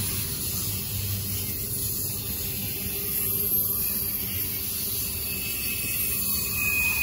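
Double-stack intermodal freight train's container well cars rolling past, a steady rumble and hiss of steel wheels on rail, with a faint high tone coming in near the end.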